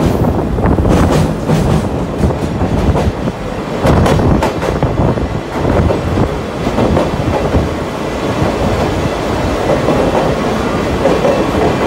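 Sagano Scenic Railway trolley car on TR209 bogies running along the track: a steady rumble of the wheels, with clacks as they pass over the rail joints.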